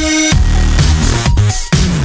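Loud electronic dance music with heavy bass.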